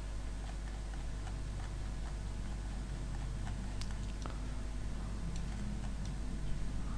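Steady low electrical hum from a desk microphone, with faint, irregular clicks of a computer mouse being used.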